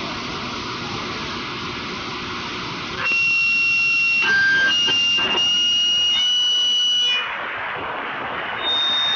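CB radio receiver hissing with open-channel static. About three seconds in, a transmission of steady electronic beep tones cuts in, stepping between several pitches for about four seconds. The static hiss returns, and a single higher beep tone sounds near the end.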